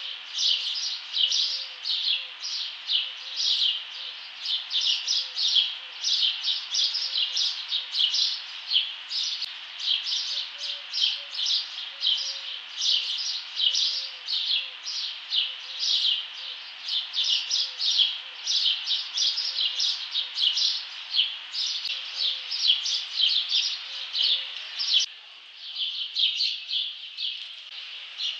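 Birds chirping continuously in a dense run of short, high chirps, about three or four a second. A fainter lower background drops out a few seconds before the end while the chirping goes on.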